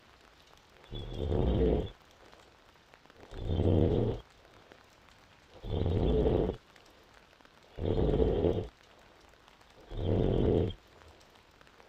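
A woman in deep sleep snoring: five rough snores, about one every two seconds, each lasting under a second, with quiet breathing gaps between.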